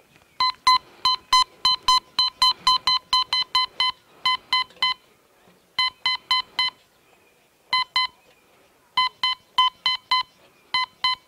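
Teknetics Alpha metal detector giving short beeps of one fixed pitch, about four a second, in runs broken by pauses. Each beep is the detector signalling a flat metal sheet, about 8 inches across, waved past its search coil at about 28 inches in an air test.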